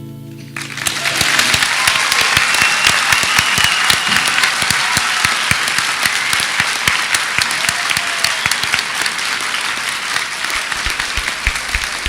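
A large audience applauding, the clapping swelling in about half a second in as the last acoustic guitar note fades, then carrying on steadily.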